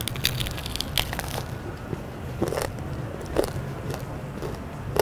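Crunchy bites and chewing of tostones (twice-fried green plantain slices), with sharp crackles every so often, heard close on a clip-on microphone.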